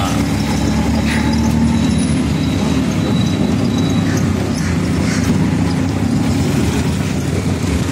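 Auto-rickshaw engine running steadily as the rickshaw drives along, heard from the passenger seat inside its open cabin.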